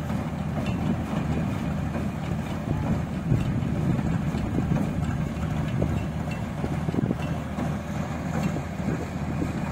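Rice combine harvester's engine running steadily while it unloads paddy through its auger spout into a lorry.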